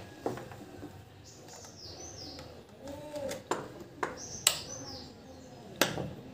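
Small birds chirping in the background with short, high, falling chirps, over several sharp clicks and knocks of tools and parts being handled; the loudest knock comes about four and a half seconds in.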